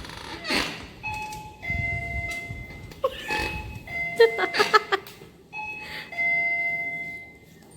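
Electronic two-note chime, a higher tone stepping down to a lower one, sounding three times. Short harsh bursts of noise fall between the chimes, the loudest about four to five seconds in.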